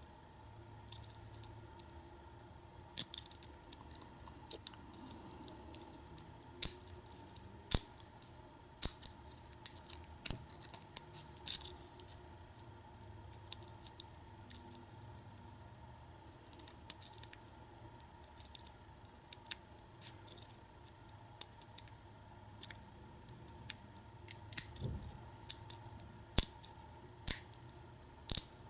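Small metallic clicks and ticks at irregular intervals, sometimes bunched together: a hook pick and tension wrench single-pin picking the pins of a Kwikset-keyway KIK lock cylinder. A faint steady hum lies underneath.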